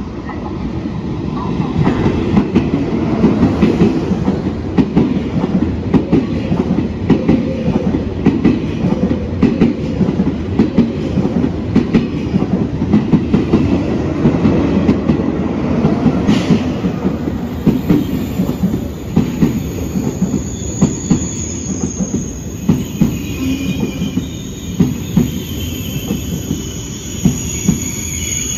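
A train rolling through the station, its wheels clattering rapidly over rail joints and points with a heavy rumble. About two-thirds of the way through, a high metallic squeal sets in and goes on to the end.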